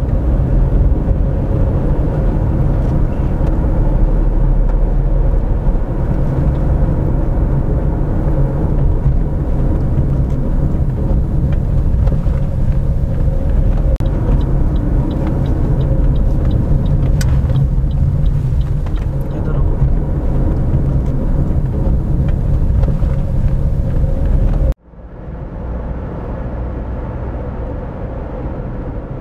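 Car driving on a road, heard from inside the cabin: a steady low rumble of engine and tyres with a steady hum. About 25 seconds in the sound cuts off suddenly and carries on quieter and duller.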